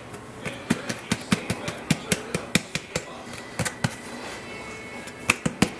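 Rapid, irregular sharp taps and knocks, several a second, from a bowl being knocked about to empty thick cream of chicken soup over a glass baking dish.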